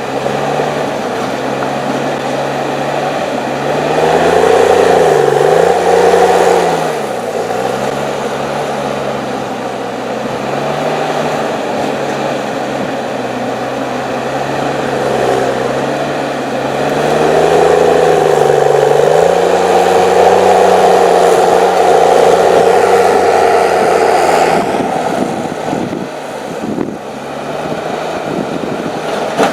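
Diesel engine of an HSM 904 S forestry machine (6.7 litres, 238 hp) running continuously. Its revs rise and it gets louder twice as it works under load, then it settles back. A few knocks come near the end.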